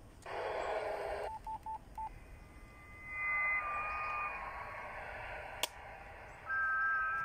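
Handheld amateur radio transceiver: a burst of receiver static about a second long, then four short beeps, then steady electronic tones over hiss, a sharp click, and a steady two-note tone near the end.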